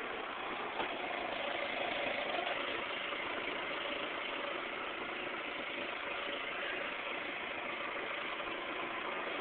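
Steady mechanical hum over outdoor background noise, with faint steady tones and a small click about a second in.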